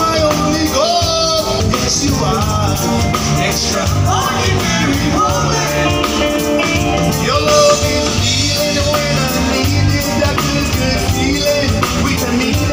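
Live band music: drums, bass guitar and electric guitar playing a steady groove under a male lead singer and female backing singers.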